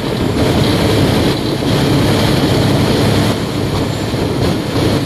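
Khlong Saen Saep express boat running under way: the boat's diesel engine runs loud and steady, with water rushing past the hull.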